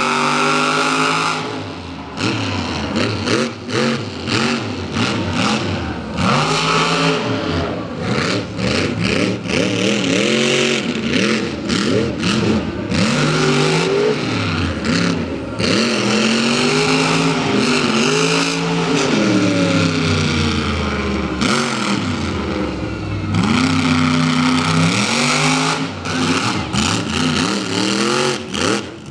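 Over Bored monster truck's engine revving hard, its pitch climbing and falling over and over as the throttle is worked.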